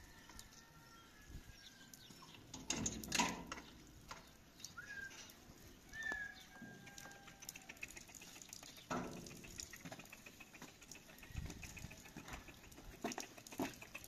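Scattered shoe scuffs and light footsteps on packed dirt, with a few louder knocks and several faint short high chirps.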